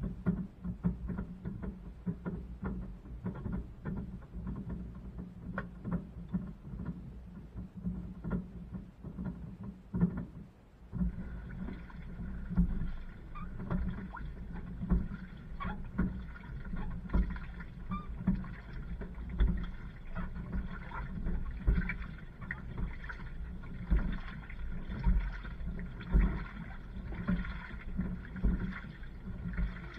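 Inside a running LG washing machine drum: water sloshing with irregular knocks as the tumbling load and the camera in its housing are thrown about. From about eleven seconds in a steady hum of several pitches joins the sloshing.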